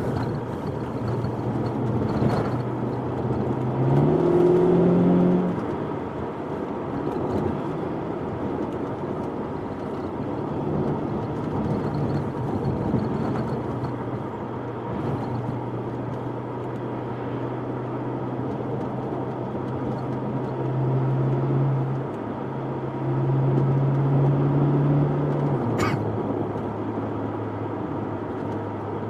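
Ferrari California T's twin-turbo V8 running with the car under way, over road and tyre noise. The engine note climbs and grows louder briefly about four seconds in, and again for a few seconds near the end, then settles lower. A single sharp click sounds near the end.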